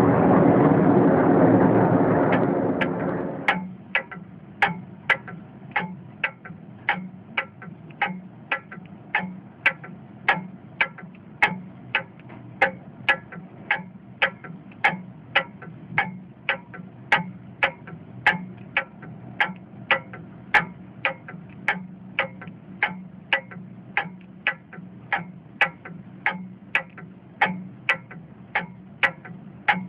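Aircraft engine noise from a plane passing overhead, cut off about three seconds in. Then a steady, even ticking, just under two ticks a second.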